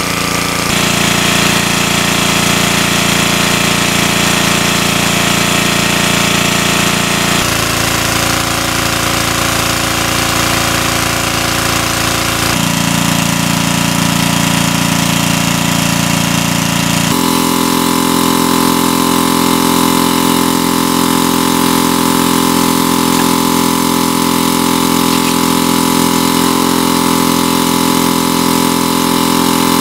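Small petrol engine of a portable water pump running steadily at a constant speed while pumping water. Its tone shifts abruptly a few times.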